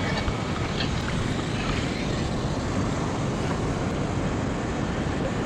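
Steady rushing noise of wind and moving water, with wind buffeting the microphone.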